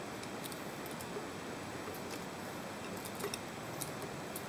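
Steady recording static hiss, with a few faint, scattered clicks of small metal parts being handled as a milling-machine power feed's cover is worked loose.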